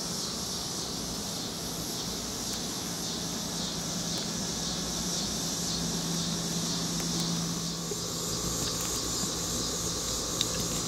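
Insects singing in a steady, shrill, high-pitched chorus over a low, steady hum.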